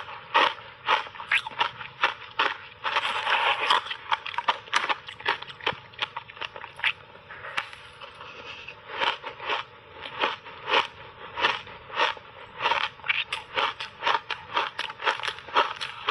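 Close-miked chewing of crunchy frozen shaved ice in big mouthfuls: a rapid, irregular run of sharp crunches, densest about three seconds in.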